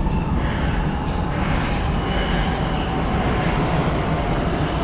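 Brussels metro train approaching through the tunnel: a steady low rumble with a faint thin whine above it.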